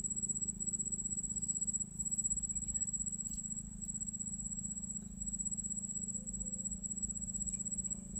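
Night insects trilling steadily in a high-pitched, pulsing chorus with brief breaks, over a low steady hum.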